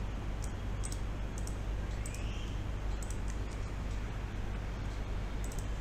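Computer keyboard typing and mouse clicks, scattered and irregular, over a steady low hum.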